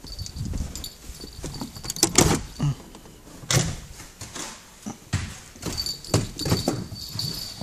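A string of irregular knocks, clicks and scuffs, about eight in all, the loudest a little after two seconds in, with quieter rustling between, like a phone being handled close to the microphone and a door being moved.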